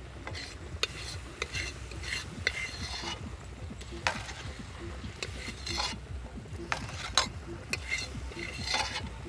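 A metal spoon scraping and clinking in a cooking pot in irregular strokes, as food is stirred and scooped.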